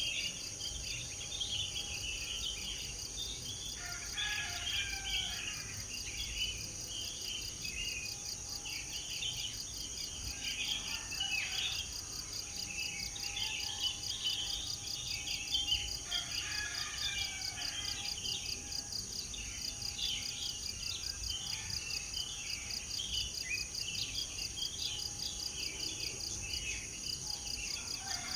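Several birds chirping and singing in overlapping, irregular phrases. Underneath, insects keep up a continuous high-pitched trill that pulses rapidly.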